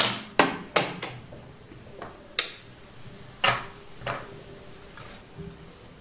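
Half a dozen sharp clicks and taps at uneven spacing, three of them within the first second, with a few fainter ones in between.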